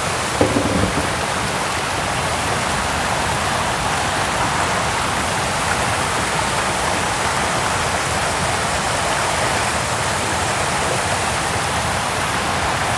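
Steady, unbroken rush of water, an even hiss with no rhythm.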